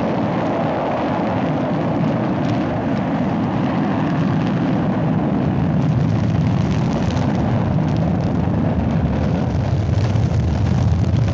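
Steady, loud rumble of a rocket launch: the engines' exhaust at liftoff, heaviest in the low end.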